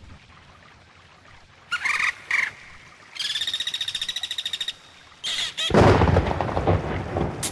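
Sound-effect intro to a dance track: after a faint hiss come a few short gliding chirps, then a high squeal pulsing fast for about a second and a half, then another chirp. About six seconds in, a loud rumbling crash sets in and runs on into the music.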